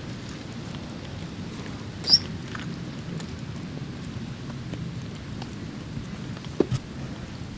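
Outdoor ambience with a steady low rumble of wind on the microphone. A single short, high bird chirp comes about two seconds in, and a sharp knock comes near the end.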